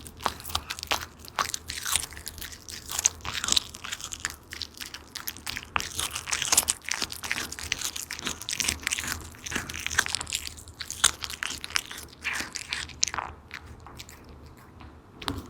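A cat chewing and crunching on fish: quick, irregular crunching bites that thin out near the end.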